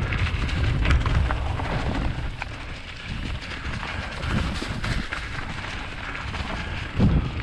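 Mountain bike riding a dirt trail: wind buffeting the microphone and tyres rolling over dirt, with scattered rattles and clicks and a louder bump near the end.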